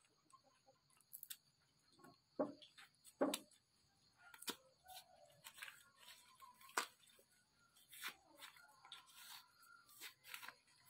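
Cassava root being peeled by hand: the thick peel cracking and tearing away from the starchy flesh in irregular snaps, with a few sharper cracks among them.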